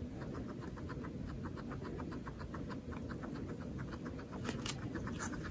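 Guinea pig chewing its food, a quick, steady run of small crunching clicks about six a second, with a few louder crackles near the end.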